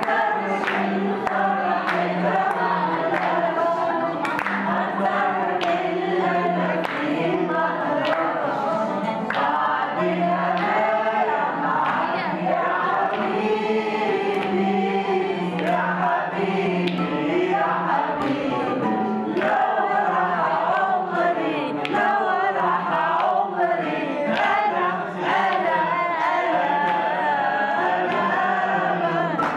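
A group of people singing together in chorus, with rhythmic hand-clapping keeping the beat.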